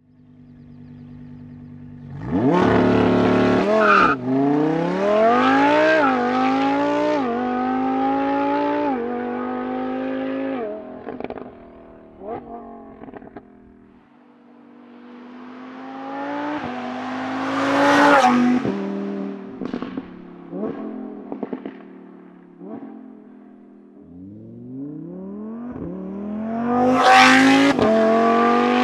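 Lamborghini Huracán EVO's V10 with a Novitec exhaust, revving and accelerating hard. Its pitch climbs in steps and drops at each upshift, with sharp crackles and pops as the throttle closes. It passes by loud and fades, then accelerates hard again through more upshifts.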